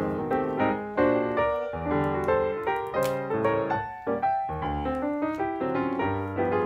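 Background piano music: a flowing line of single notes and chords, each struck and then fading.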